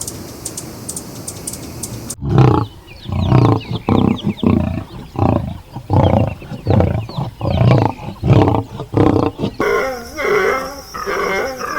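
A large animal giving a series of about ten loud, short, deep calls, roughly one and a half a second, starting abruptly about two seconds in. Near the end it cuts to a different, busier animal sound.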